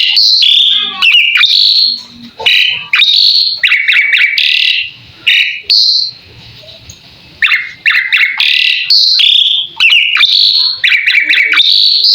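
Pied starling (jalak suren) singing loudly: bursts of rapid chattering and whistled notes, each about a second long, with a short pause a little past the middle.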